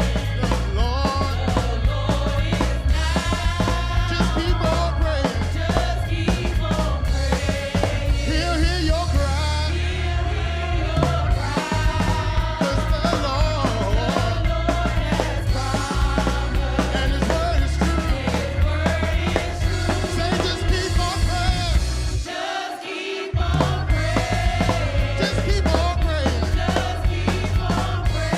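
Live gospel band playing a driving groove with drums and a heavy bass line. The bass drops out for about a second near the end, then comes back in.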